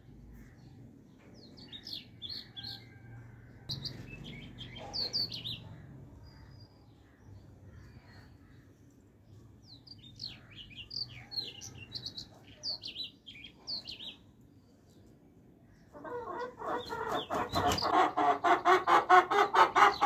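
Chickens: scattered short high chirps, then about four seconds before the end a chicken breaks into loud, rapid clucking, a fast run of repeated calls that grows louder to the end.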